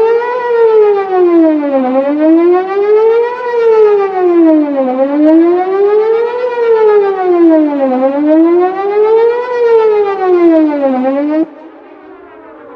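Whelen WPS-4008 electronic outdoor warning siren sounding its Best Possible Protection (BPP) tone. The pitch sweeps up and down about every three seconds, and the loudness holds steady because the broken rotator keeps the siren from turning. Near the end it cuts off suddenly, leaving fainter distant sirens still sweeping.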